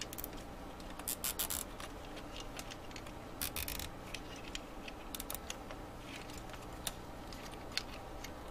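Nylon cable tie being pulled tight around wires, giving short runs of quick ratcheting clicks about a second in and again about three and a half seconds in, with scattered small plastic clicks from handling in between.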